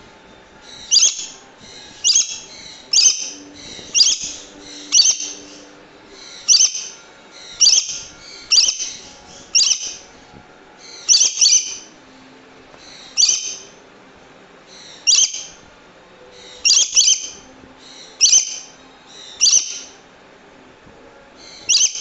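Swainson's lorikeet giving short, loud, high-pitched screeching calls, about one every second.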